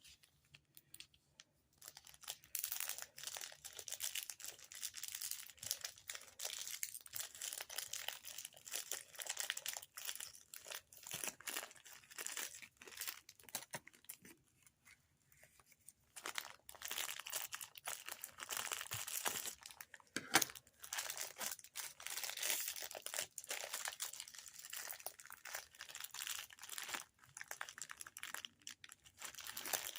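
Product packaging being worked open by hand: crinkling and tearing in long stretches, with a short pause about halfway and one sharper snap about two-thirds of the way through.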